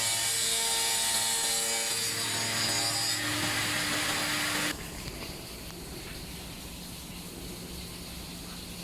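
Hand-push tile cutting machine's twin blades cutting through a board, a loud gritty sawing with a steady motor whine. About four and a half seconds in the cut ends abruptly, and the machine runs on with a quieter, low hum.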